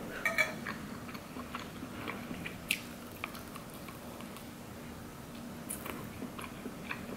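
Close-up eating sounds of a person biting and chewing a shrimp by hand, with scattered small clicks and crackles. A louder cluster comes about half a second in, and a sharp click a little under three seconds in.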